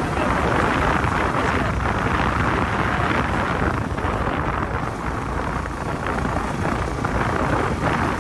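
Steady wind rushing over the microphone of a phone riding on a moving motorcycle, mixed with engine and road noise.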